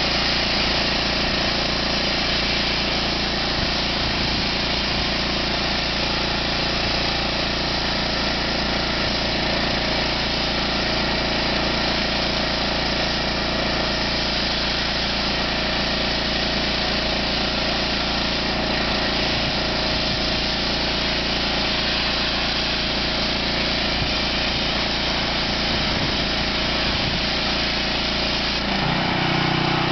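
Small gasoline engine of a sandblasting rig running steadily at a constant speed, under a continuous hiss from the blasting nozzle. A deeper hum joins in about a second before the end.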